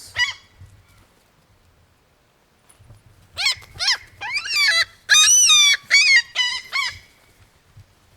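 Seagull screeching: one short call near the start, then after a pause a quick run of loud, harsh calls, each rising and falling in pitch, from about three to seven seconds in.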